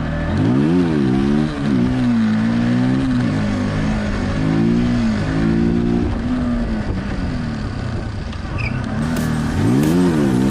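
Bajaj Pulsar 200 NS motorcycle's single-cylinder engine revving up and dropping back about a second in, running steadily under way, then revving up again near the end.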